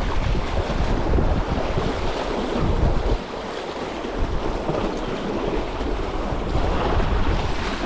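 Wind buffeting the microphone over the steady wash of sea waves, with gusty low rumble throughout.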